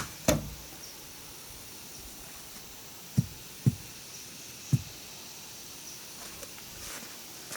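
Two sharp knocks right at the start, then three short, dull thuds a little past the middle, over a faint steady high-pitched buzz.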